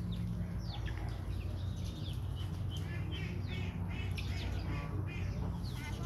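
Caged young common mynas calling: short chirps and squawks repeated in quick runs, busier in the second half, over a steady low hum.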